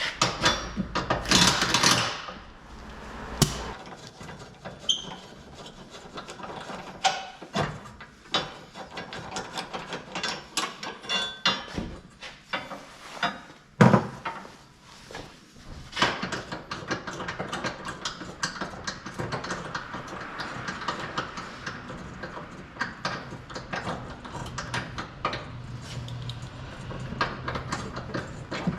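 Hand-tool work on a car's front suspension: irregular knocks, clicks and clatter of tools and metal parts, with one sharp loud knock about 14 seconds in, then denser, steadier clattering.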